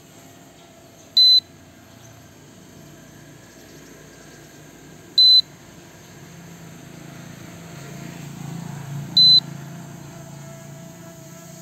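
Low-battery warning beep of the X3 MAX drone's control system, sounding three times about four seconds apart: short, high-pitched and loud. It signals that the flight battery is nearly empty. Under the beeps is a low hum that swells in the second half.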